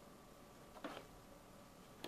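Near silence, broken about a second in by a single light click of plastic Lego bricks being handled.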